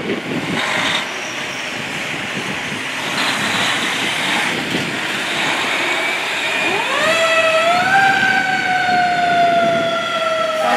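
A fire truck's engine running as the apparatus pulls out under power, then, near the end, its siren winds up quickly and slowly winds back down.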